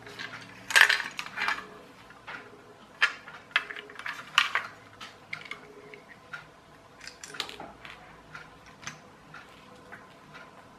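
Irregular clicks, knocks and light clatter of hard plastic toy parts as a clockwork toy car's clear plastic motor unit is handled and worked free of its body shell, the loudest knock about a second in.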